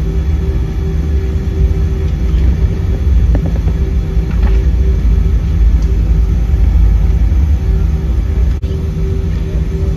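Steady low rumble with a constant engine hum, heard from inside a moving vehicle. The sound dips briefly about eight and a half seconds in.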